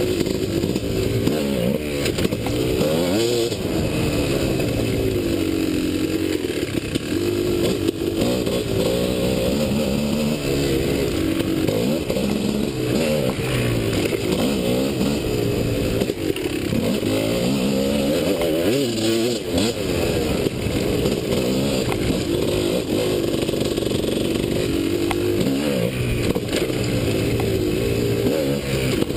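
Enduro dirt bike engine running hard, revving up and dropping back again and again as the bike is ridden along a trail, with a few scattered knocks.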